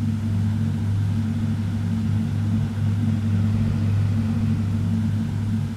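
Electronic ambient music: a low, steady droning hum with no beat.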